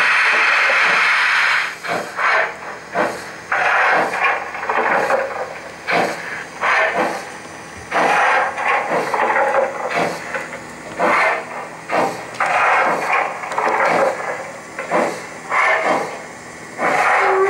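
Model class 50 steam locomotive's steam sounds: a steady hiss, then uneven hissing chuffs about once or twice a second. A steam whistle starts right at the end.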